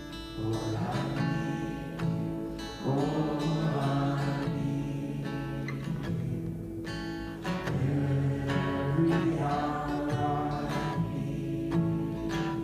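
Acoustic guitar strumming chords, with the chords changing every second or two.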